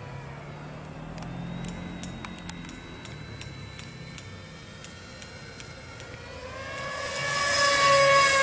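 Whine of the Depron foam RC jet's NTM 2830 brushless motor driving a four-blade pusher propeller in flight. It is faint at first and grows steadily louder over the last two seconds as the plane comes close.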